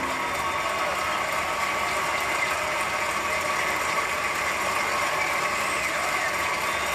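Audience applauding: a dense, steady clatter of clapping with no music.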